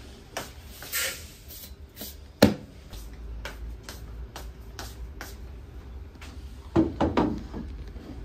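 Kitchen handling noises over a low steady hum: scattered clicks and footsteps on tile, one sharp knock about two and a half seconds in, and a cluster of heavier knocks near the end as a large metal oil tin is set onto its metal stand.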